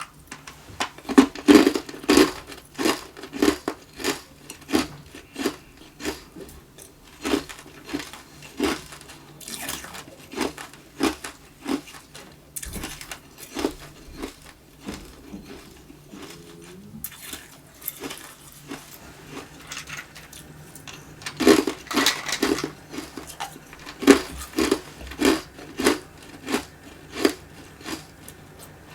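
Tube ice being bitten and chewed close to the microphone: a steady run of sharp crunches, about two to three a second. There are louder bursts of fresh bites about a second in and again about two-thirds of the way through, with a quieter patch of chewing between them.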